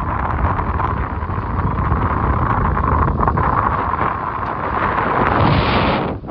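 Wind buffeting the microphone aboard a sailboat under way, a loud, steady rumbling rush that drops off sharply at the very end.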